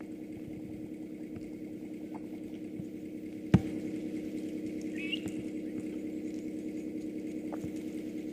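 Safari game-drive vehicle's engine idling steadily, with a single sharp crack about three and a half seconds in.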